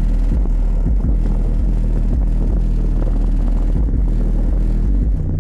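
Bass-heavy music played loud through two Sundown Audio E8 V6 8-inch subwoofers on a Hifonics 3200.1 amplifier, in a box tuned to 33 Hz. Heard inside the vehicle, the deep bass pulses in time with the beat and drowns out the rest of the song.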